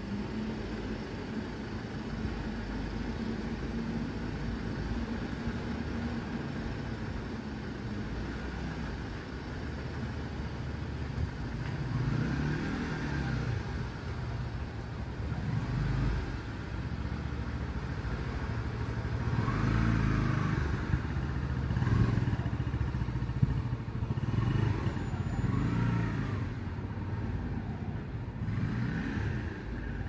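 Outdoor road traffic: a steady low rumble with a hum in the first several seconds, then several vehicles passing one after another, each swelling and fading, loudest past the middle.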